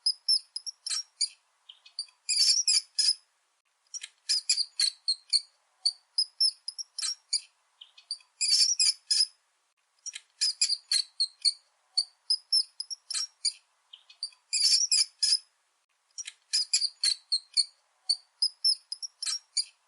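Mice squeaking: quick runs of short, high-pitched squeaks in clusters with brief silent gaps between them. The same sequence repeats about every six seconds.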